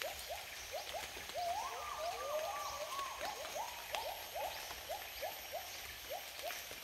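Rainforest animal calls: a steady series of short rising calls at about three a second, with a brief flurry of overlapping calls about a second and a half in, and faint high chirps above.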